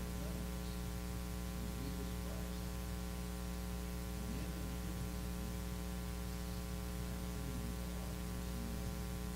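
Steady electrical mains hum on the recording, with a faint, distant voice speaking off-mic underneath it.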